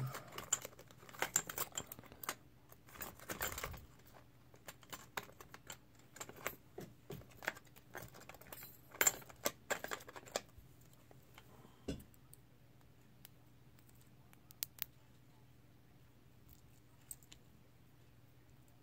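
Small metallic clicks and light rattles from a brass lock cylinder being handled while a shim is worked in, dense for the first few seconds and then scattered, sparse ticks.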